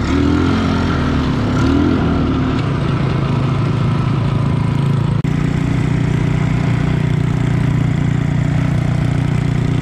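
ATV engine running steadily as the quad rides along a dirt trail, with a brief dropout about five seconds in.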